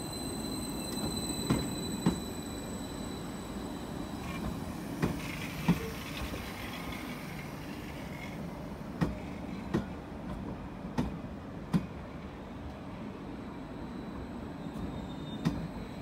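Greater Anglia Class 755 Stadler FLIRT unit rolling slowly into the platform: a steady running rumble with a thin high whine over it, and sharp clicks in pairs every few seconds as its wheels cross a rail joint.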